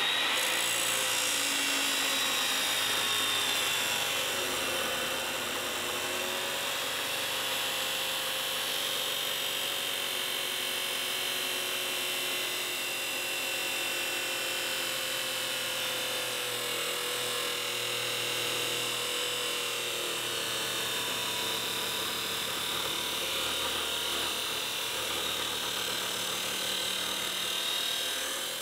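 Milwaukee abrasive chop saw running under load, its abrasive cut-off wheel grinding through a steel bar: a steady high motor whine over a harsh grinding noise. The whine dips slightly in pitch early on and eases near the end as the cut finishes.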